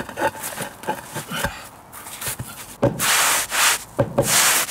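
Concrete paving slab being bedded into sand: gritty scraping of slab and sand in long strokes through the second half, with a few dull knocks from a rubber mallet tapping it down.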